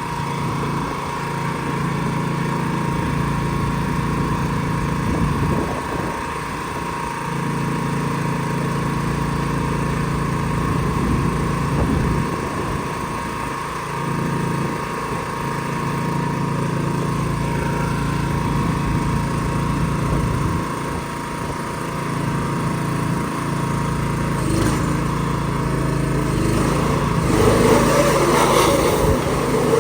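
An engine running steadily, its low drone dipping and coming back every several seconds, with a louder, rougher stretch near the end.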